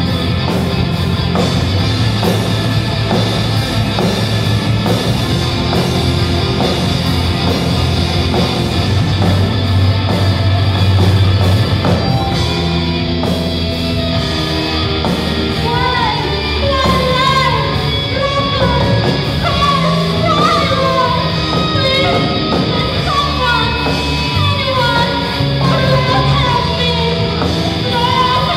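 Live rock band playing loudly: distorted electric guitars, bass guitar and drum kit with a steady beat. About halfway through, a bending lead melody comes in over the band.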